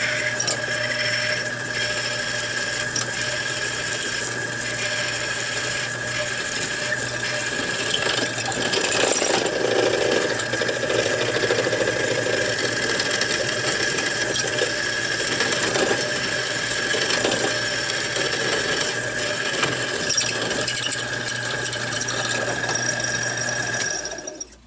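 Drill press running with a twist drill bit cutting through aluminum extrusion: a steady motor hum and a high whine, with a rougher cutting sound as the bit bites. The motor stops abruptly near the end.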